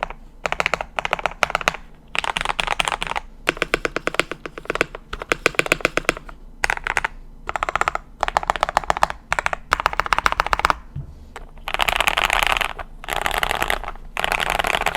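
Custom KBD67 Lite mechanical keyboard with lubed Gateron Milky Yellow linear switches on a polycarbonate plate and PBT keycaps being typed on in quick bursts of keystrokes with short pauses between them. The last few seconds are longer runs of very fast typing.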